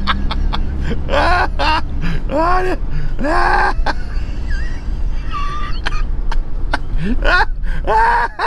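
A man laughing hard in several loud bursts of rising and falling laughter, with a quieter stretch in the middle. Under it runs the steady low rumble of the minibus driving, heard from inside the cabin.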